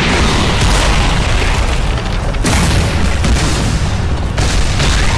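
Loud booming explosion and impact sound effects from an animated fight, several blasts one after another, with a fresh sharp blast about two and a half seconds in and another near the end.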